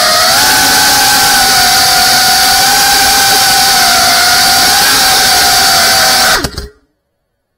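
A GEPRC Cinelog 35 FPV drone's brushless motors and propellers, heard close up from the drone itself: a loud, steady high whine with hiss as it flies. About six and a half seconds in, the pitch drops sharply as the motors spin down, and the sound cuts off.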